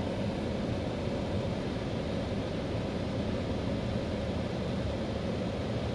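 Steady low hum and hiss inside a car's cabin, with no distinct events.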